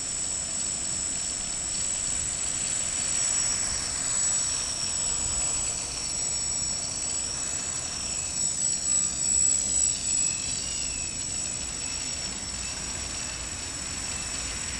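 Quadcopter's electric motors and propellers whining at a steady high pitch, the pitch sliding up and down about halfway through as it lifts off the ground and climbs to a hover.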